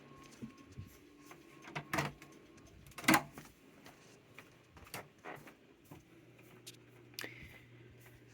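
Scattered clicks and knocks of objects being handled, about half a dozen, the loudest two near 2 and 3 seconds in, over a faint steady hum.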